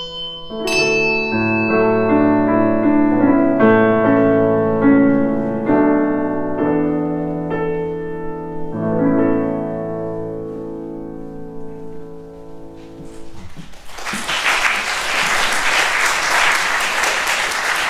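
Closing bars of a piece for handbell and piano: a handbell strike rings out, then piano chords and held notes die away. Audience applause starts about fourteen seconds in and carries on.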